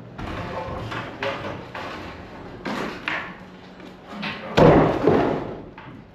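Wooden floor framing being pulled loose by hand: rough knocking and rubbing of lumber, then a loud heavy thud about four and a half seconds in as a piece drops.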